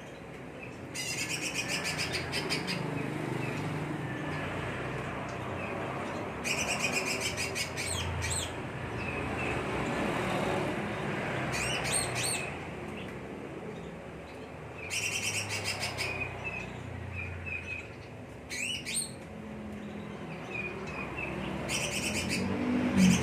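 Cucak ijo (green leafbird) singing in short, separate bursts of rapid, high, chattering notes, about six phrases with pauses between them, over a low background rumble.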